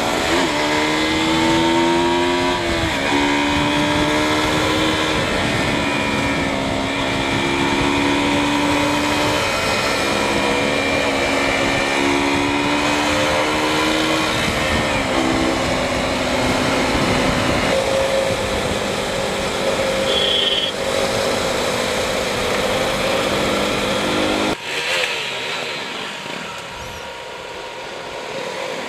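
KTM RC motorcycle engine running under way, its pitch rising and stepping between gears, under a steady rush of wind and road noise. Near the end the low rumble drops away suddenly and the sound quietens.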